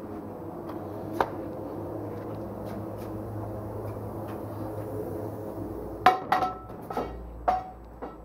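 A steady machine hum that fades out about six seconds in, with one sharp metallic clink early on, then a quick series of five clinks with brief ringing: metal tools and fittings knocking against a steel wheel during tubeless tyre mounting.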